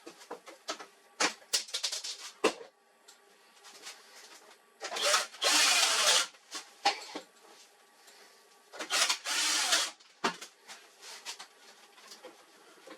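Parts being handled during printer repair work: scattered clicks and knocks, with two louder scraping rubs about five and nine seconds in, each lasting around a second.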